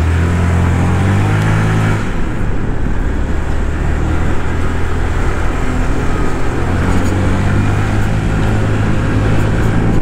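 Honda Click scooter's single-cylinder engine running under way, with wind rushing past, picked up by a helmet-mounted microphone with the visor closed. The engine note eases off about two seconds in and picks up again a few seconds later.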